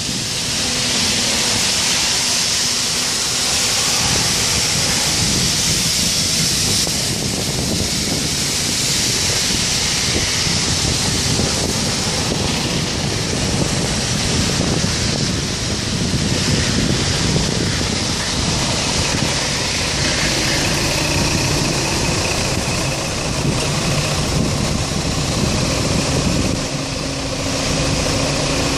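City street traffic heard from a moving bicycle: motor vehicle engines running and idling around it, with wind rushing over the microphone in the first part. A steady engine hum from a nearby idling vehicle comes up in the last few seconds.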